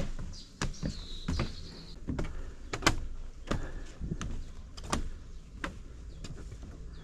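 Footsteps on wooden stairs and boardwalk, an even walking pace with a dull knock about every two-thirds of a second.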